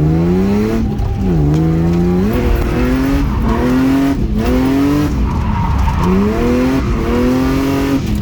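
Drift car's engine revving hard, its pitch climbing and dropping again about six times as the throttle is worked, with tyres squealing.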